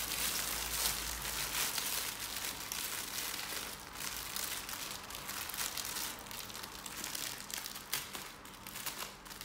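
Clear plastic packaging crinkling as hands handle a bag of diamond painting drill packets.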